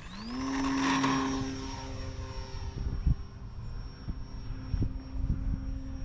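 Electric motor and propeller of an E-flite Valiant 1.3m RC airplane spooling up to full throttle for takeoff. The pitch rises quickly at the start and then holds as a steady propeller drone with a high motor whine. It is loudest about a second in, then fades as the plane climbs away, while gusts of wind rumble on the microphone.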